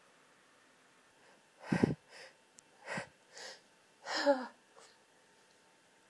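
A woman's stifled sneezes in a hay-fever fit: three short, muffled bursts about a second apart, starting about two seconds in, each followed by a quick breath. The last is partly voiced with a falling pitch.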